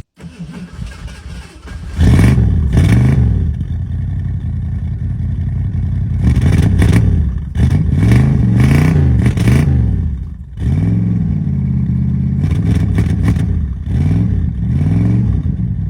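Long-stored Ford Mustang II V8 sputtering for about two seconds, catching, then being revved up and down again and again, sagging almost to a stall about ten seconds in before it picks up and keeps running.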